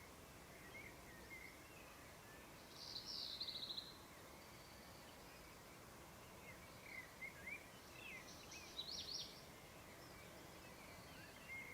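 Faint morning ambience of small birds chirping over a steady low hiss, with a rapid trill about three seconds in and a burst of sharp high notes around eight to nine seconds.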